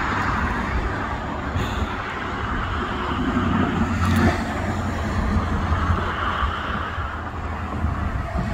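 Steady rumble of road traffic mixed with a freight train of tank and hopper cars rolling past at a distance. A vehicle goes by close about three to four seconds in.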